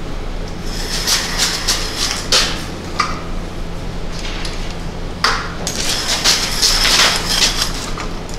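Clattering, rustling handling noise with scattered sharp metallic clinks as gear and a work light are moved under a lifted truck, in two busy spells, over a steady low hum.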